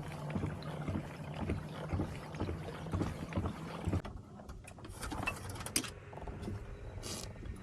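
Kayak on the water: lapping and hull noise with a low steady hum that cuts off about halfway through, followed by a few sharp knocks and clicks.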